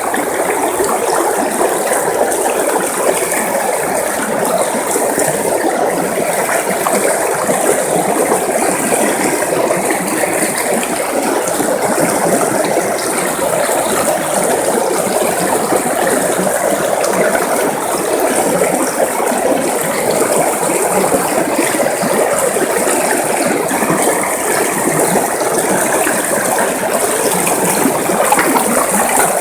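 River water running steadily over rocks, a continuous loud rush with a fine crackling, babbling texture.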